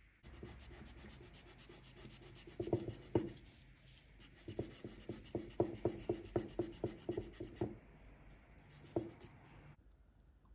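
Scratchy rubbing of a paint marker's tip worked over a diecast model bus body, with runs of quick taps and clicks in the middle, about four a second at their busiest; it stops shortly before the end.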